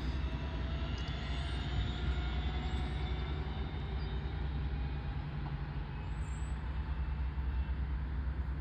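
DB Class 426 electric multiple unit running: a steady low hum with faint steady tones above it, and now and then a faint short high glide.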